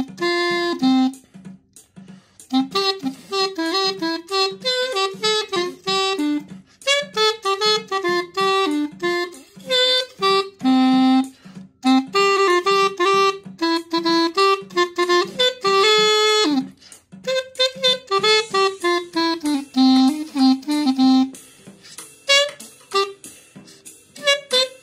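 3D-printed plastic pocket clarinet in C with a 3D-printed mouthpiece, playing a reedy melody of short notes with a few brief pauses, over a steady backing beat.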